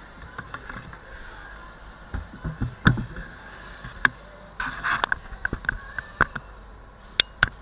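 Handling noise from a handheld camera being moved about: scattered light clicks and knocks, with a short rustle about halfway through and two sharp clicks near the end.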